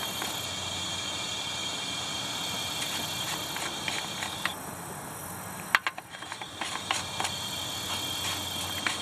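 Compressed air from a leak-down tester hissing steadily out of the crankcase of a Jeep 4.0 straight-six, with a thin whistle in it and a few clicks about six seconds in. Air escaping from the crankcase breather during the test is the sign of defective rings or worn cylinder walls in cylinder 3.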